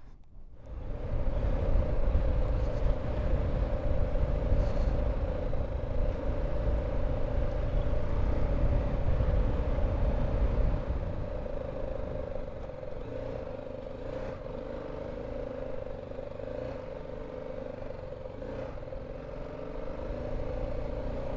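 BMW G310 GS single-cylinder motorcycle engine running as the bike rides along a rough off-road track, over a heavy low rumble. It gets going just after the start and eases off somewhat about halfway through.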